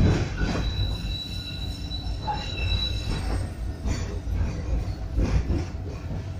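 Interior of a Schindler Be 4/6 S tram running slowly over curved track: a steady low rumble of wheels and body. A thin, high wheel squeal rings for the first three seconds or so as the wheels grind round the curve.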